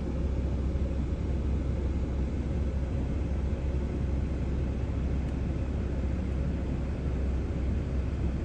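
Steady low rumble heard from inside a car's cabin as it idles in slow traffic.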